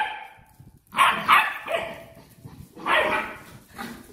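A puppy barking: two short, loud barks about two seconds apart, with a fainter yip near the end.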